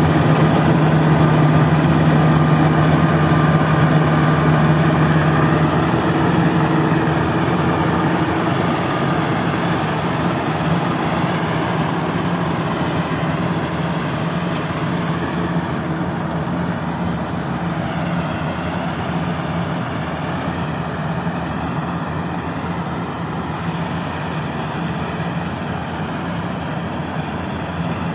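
Engine of a BIMO 102 crawler rice combine harvester running steadily under load while it harvests rice, a continuous low mechanical hum that slowly grows fainter as the machine moves away.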